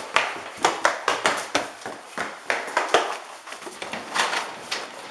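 Hurried running footsteps with camera handling and clothing rustle, an uneven run of sharp knocks and scuffs about three a second, from a person running with the camera.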